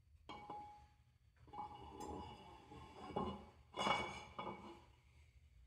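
Cylinder liner of a Caterpillar 3406B engine clinking and scraping against the engine block as it is set into its bore by hand. A few separate metallic clinks, each ringing briefly, the sharpest about four seconds in.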